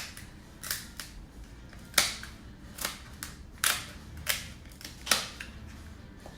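Steamed king crab shell being cracked and snapped apart: a run of sharp, irregular cracks and snaps, about one or two a second.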